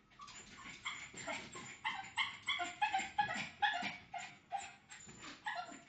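Boston terrier giving a rapid string of short, high-pitched yips and whines, about three a second, loudest in the middle: excited whining to get out.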